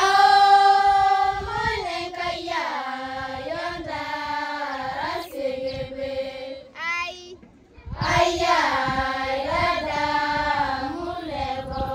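A group of girls singing a chant together in unison. It opens on a long held note, moves through short sung phrases, breaks off briefly about two-thirds of the way in, then comes in again.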